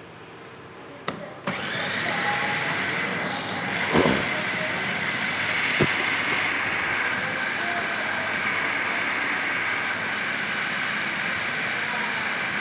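Electric food grinder starting with two clicks about a second in, then running steadily as it grinds fried chilies into coarse sambal paste.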